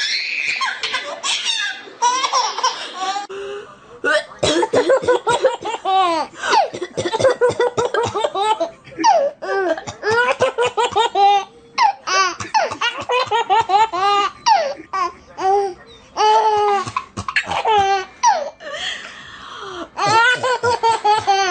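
A baby laughing hard in long runs of quick, rhythmic, high-pitched laughs with short breaks between them.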